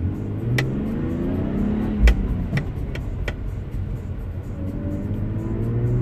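Car engine accelerating, heard from inside the cabin, its pitch rising and dropping back several times as it pulls through the gears. A few sharp clicks sound in the first half, the loudest about two seconds in with a low thump.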